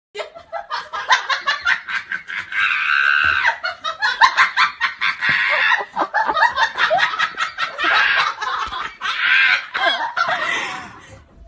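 A person laughing hard and without stopping, in quick high-pitched pulses with brief catches of breath, dying away near the end.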